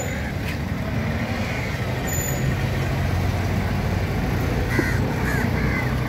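Steady outdoor background noise with a continuous low engine-like hum, as of nearby vehicles, and a short call near the end.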